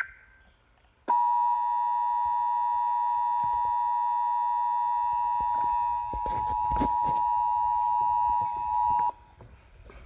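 Emergency Alert System two-tone attention signal (853 and 960 Hz sounded together), a steady loud tone of about eight seconds that starts about a second in and cuts off suddenly. It is played over an FM station's web stream through computer speakers and signals a severe thunderstorm watch. A few faint knocks come partway through.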